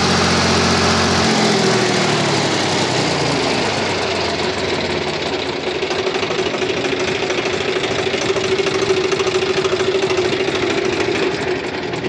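Swaraj 735 FE tractor's three-cylinder diesel engine running steadily, with a steady hum. Its valve tappets have just been reset, and the loud tappet clatter it used to make is gone: the running is smooth.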